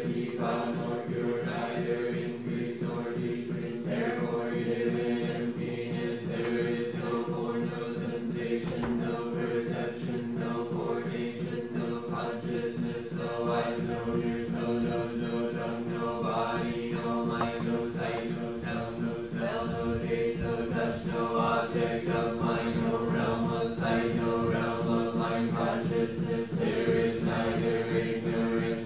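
A group of voices chanting together in sustained low tones, with no break.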